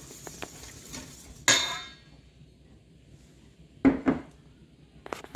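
Wire whisk scraping around a stainless steel mixing bowl as milk is beaten into eggs and sugar. About a second and a half in it clanks against the bowl with a short metallic ring. A dull knock follows near four seconds, and a few light clicks near the end.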